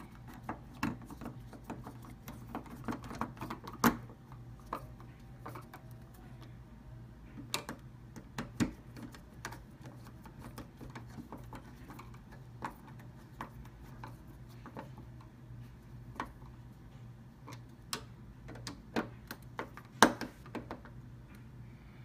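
Irregular small metallic clicks and ticks of a screwdriver tightening the screws of a door knob assembly, with a few sharper knocks of the metal parts, over a low steady hum.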